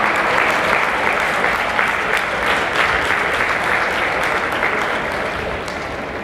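Spectators clapping for a scoring strike in a kendo match, the applause slowly thinning toward the end.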